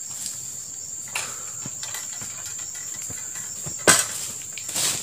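A steady high-pitched insect drone, with a single sharp knock about four seconds in.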